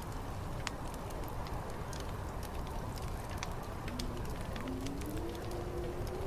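Fire crackling, with frequent sharp pops, over a steady low rumble of wind. A faint low tone wavers and rises near the end.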